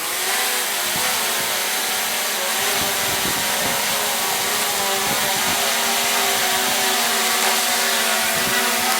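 DJI quadcopter drone's propellers and motors running as it lifts off and hovers: a steady whine of several held tones over a rushing airflow.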